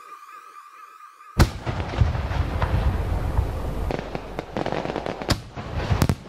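Fireworks sound effect: a sudden bang about a second and a half in, then a dense rushing crackle, thinning out with a few sharp pops near the end.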